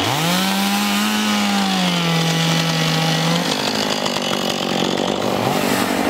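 Two-stroke petrol chainsaw revving up to high speed and holding there, then dropping back to a lower speed about three and a half seconds in, with a brief dip in speed near the end.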